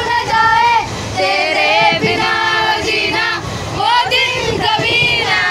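A group of young women singing a song together, several voices at once.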